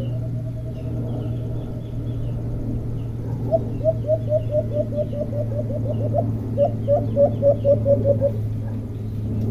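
Caged decoy alimukon dove calling: a rapid run of short, low notes at about five a second, starting about a third of the way in and stopping near the end. Small birds chirp faintly above it.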